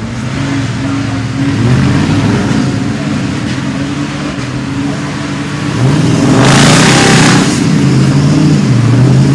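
Off-road competition truck's engine revving hard, its pitch shifting up and down. About six seconds in, a loud rushing noise rises over it for about a second.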